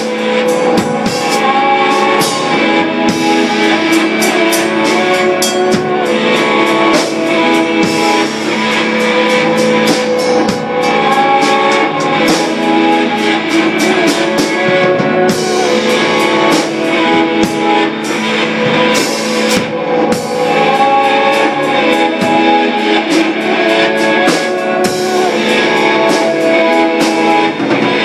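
Live rock band playing loud and continuously: electric guitar over a drum kit, with frequent drum and cymbal hits.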